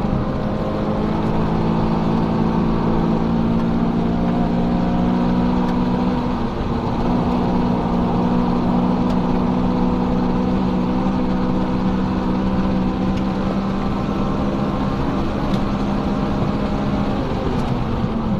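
Honda Civic Si (FA5) sedan's four-cylinder engine heard from inside the cabin while the car is driven at speed, over a steady haze of road and wind noise. The engine note holds a mostly steady pitch, with a brief dip and recovery about six to seven seconds in.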